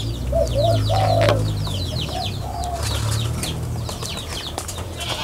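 Many small birds chirping in quick, high, short notes, with a few short lower calls mixed in, over a steady low rumble that fades about four seconds in.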